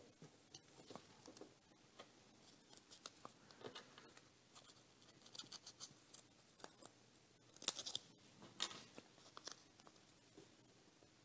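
Faint, scattered clicks and crinkles of small pieces of tape being handled by fingers, with the loudest crinkle about two thirds of the way in.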